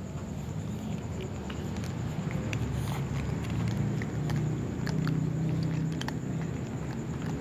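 Cats eating dry kibble close up, with small sharp crunches scattered through, over a steady low rumble that grows a little after about two seconds.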